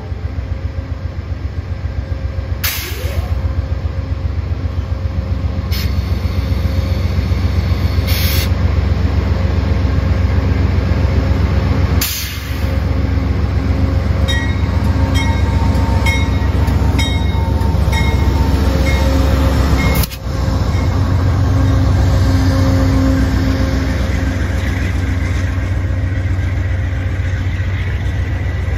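Amtrak GE P42DC diesel locomotive running as a passenger train rolls past on the station track: a loud, steady, pulsing low rumble. A few brief sharp noises cut through it.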